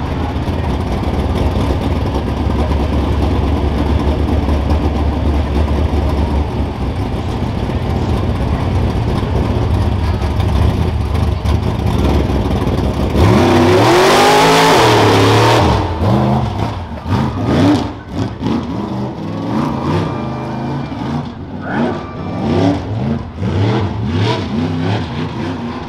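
Rough-truck race pickup's engine running steadily, then revved hard about halfway through as the truck launches, followed by repeated rising and falling revs as it is driven over the dirt course's bumps.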